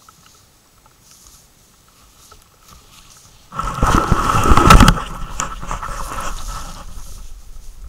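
Rustling and handling noise as the camera is pushed out through reeds toward the water: it starts suddenly about three and a half seconds in, is loudest for about a second and a half, then eases to a lower rustle.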